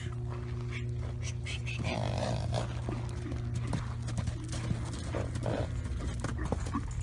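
Horse's hooves clopping on a hard surface in irregular steps, over a steady low hum.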